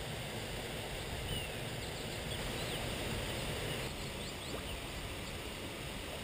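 Creek water running over rocks: a steady rush, with a few faint, short high chirps over it in the middle.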